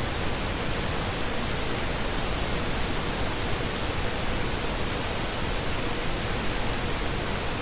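Steady, even hiss with a faint steady hum underneath and no other events: the recording's background noise.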